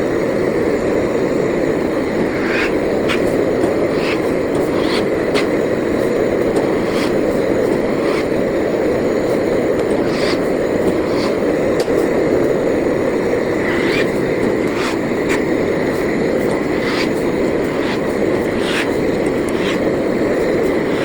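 Kebab-skin flatbread machine running: a steady, loud mechanical noise with a faint high whine and irregular sharp clicks scattered through.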